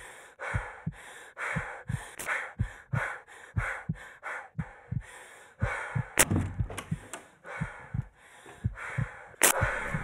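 A person breathing fast and hard in short panting puffs, with soft low thumps about three a second under the breaths. Two sharp clicks come about six and nine seconds in.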